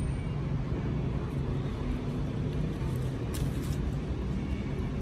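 Steady low background rumble, with a brief rustle of lime-tree leaves about three and a half seconds in.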